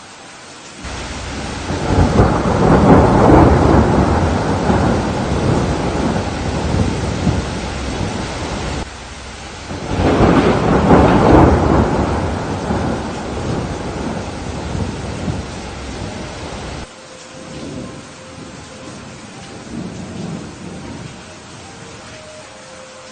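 Thunder rumbling twice over steady rain. A long rumble builds about a second in and fades slowly, then a second peal swells around ten seconds in; each cuts off abruptly. A fainter rumble follows over the rain hiss near the end.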